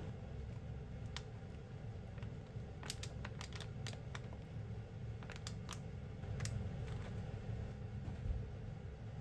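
Light sharp clicks and crinkles of a plastic wrapping as leftover sweetcorn is tipped from it into a pot of ramen, in a quick run about three seconds in and a few more after five seconds, over a faint low steady rumble.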